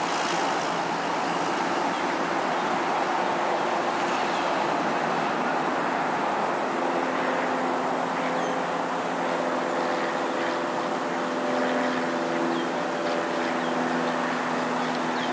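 Steady outdoor vehicle noise, joined about halfway through by the steady hum of a running engine.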